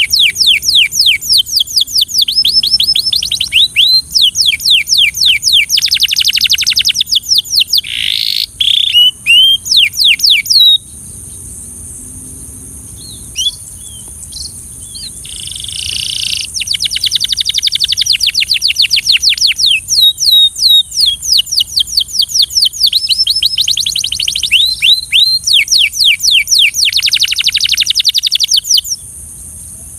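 Canary singing in fast trills of quickly repeated sweeping notes. It breaks off about eleven seconds in, resumes a few seconds later and stops near the end, over a steady high-pitched hiss.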